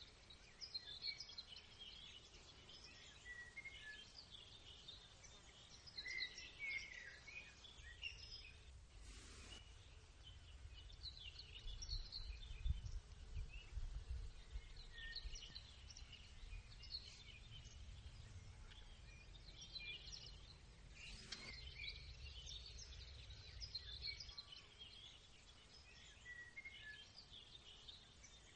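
Faint chorus of songbirds chirping and singing, with a low rumble through the middle.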